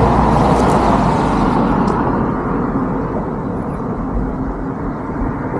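Steady outdoor road noise, a rush of traffic and wind with no clear single event; a higher hiss eases off about two seconds in, as of a passing vehicle moving away.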